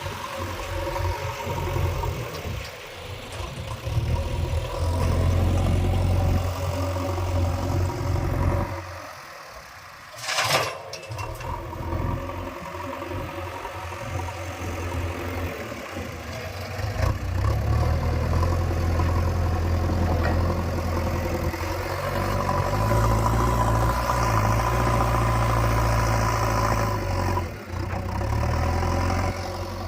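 Diesel engine of a JCB 3DX backhoe loader running while digging and loading soil, labouring louder under load twice in long stretches. A short sharp noise cuts through about ten seconds in.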